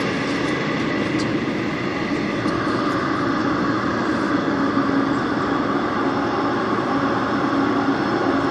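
Daejeon Metro Line 1 subway train running at speed: a steady rumble of wheels on rail with a constant hum.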